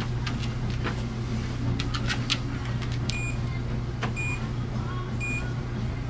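Electric treadmill motor running with a steady hum at about 4 miles per hour, with a Cardigan Welsh Corgi's claws ticking lightly on the belt. From about halfway, short high beeps repeat roughly once a second.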